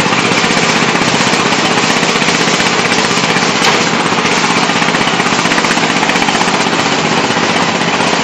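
Single-cylinder diesel engine of a walking tractor chugging steadily under load as it climbs a steep dirt track, a fast even knocking beat.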